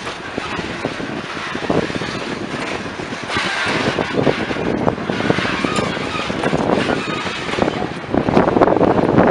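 Loaded freight boxcars of a heavy, slow-moving grain train rolling past: a steady rumble of steel wheels on rail, broken by frequent clicks and clanks as the wheels cross the rail joints. It grows a little louder near the end.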